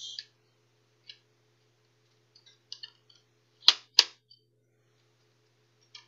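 Plastic clicks and snaps from an Asus laptop's palmrest top case being pulled loose, its plastic clips letting go. A few light clicks, then two loud, sharp snaps close together about three and a half seconds in.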